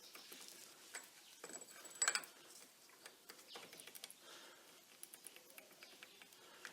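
Faint, scattered clicks and light metallic clinks from handling a machined steel workpiece and hand tools on a bench, the loudest a sharp clink about two seconds in.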